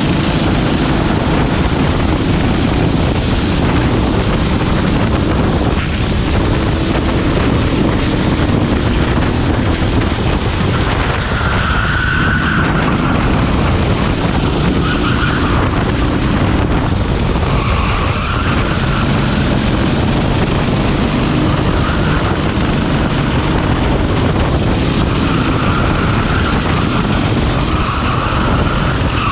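Rental go-kart's engine running hard at racing speed, heard onboard with heavy wind buffeting on the microphone and other karts running close by. Short higher squealing notes come and go several times in the second half.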